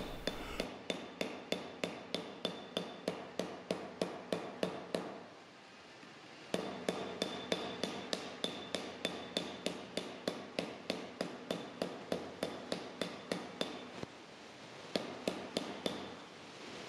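Flat-faced smoothing hammer tapping rapidly and lightly on a 3D-printed plastic mold sandwiching a metal sheet on an anvil, about four strikes a second, driving a logo relief into the sheet. The tapping comes in runs, with short pauses about five seconds in and again near fourteen seconds.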